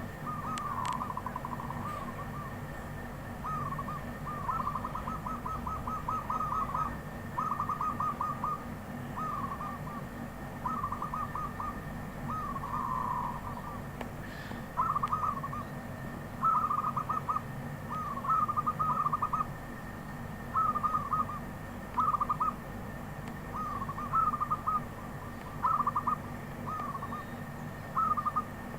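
Wild zebra dove cooing: a long series of short phrases of rapid rolling notes, one every second or so, over a steady low hum.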